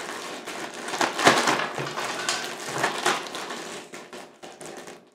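Zip-top plastic bag crinkling and rustling as it is squeezed and turned in the hands, with sauce-coated chicken bites squishing inside. The crackle comes in irregular bursts, loudest about a second in, and thins out near the end.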